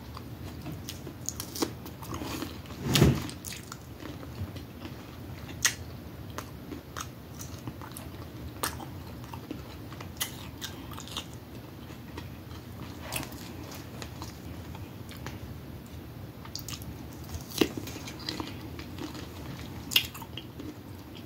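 Close-up biting and chewing of raw cucumber spears, a run of short sharp mouth clicks and crunches. One louder thump stands out about three seconds in.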